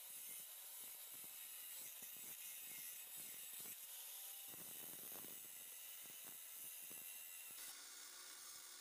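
Faint, irregular light metal taps of a hammer knocking the sealing washer off a used car spark plug.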